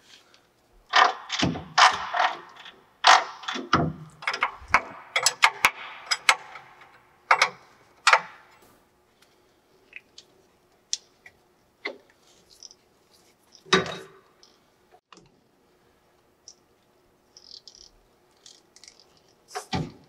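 Metal clanks, clicks and rattles as V-belts are worked by hand off a lathe motor's multi-groove pulley. There is a busy stretch of clattering at first, then scattered clicks and a couple of single knocks, one near the end.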